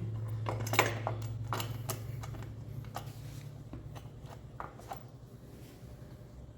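Light clicks and taps of a motorcycle's front sprocket cover and its screws being handled and fitted onto the engine case, irregular and thinning out toward the end, over a steady low hum.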